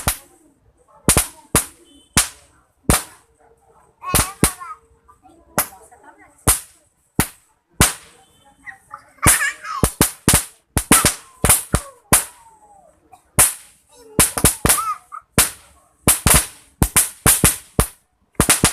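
Roll caps going off: a long, irregular string of sharp, loud pops, sometimes several in quick succession.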